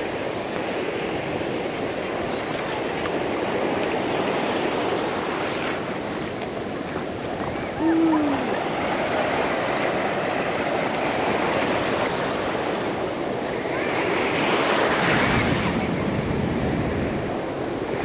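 Ocean surf breaking and washing up a sandy beach: a steady rush of water that swells for a couple of seconds near the end. About eight seconds in there is a brief falling tone.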